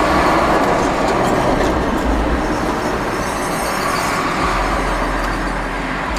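Loud, steady rumble of heavy road traffic heard from inside a parked car, swelling as a large truck passes.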